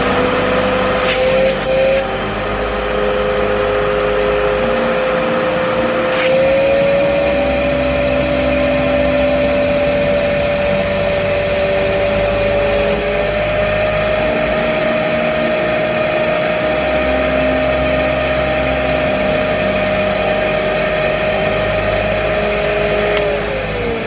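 Kärcher WD3 wet and dry vacuum's motor running with a steady whine that steps up in pitch twice. It is switched off near the end and winds down with a falling whine.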